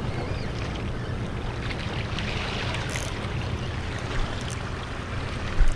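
Small sea waves washing over shoreline rocks, with wind rumbling on the microphone. A single thump near the end.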